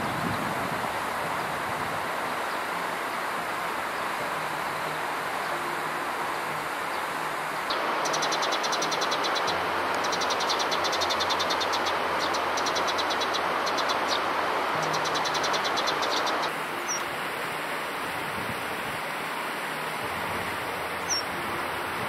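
Steady outdoor rush of wind through leaves, in several cut segments. In the middle, for about eight seconds, Eurasian tree sparrows chirp in fast, closely spaced runs of high notes.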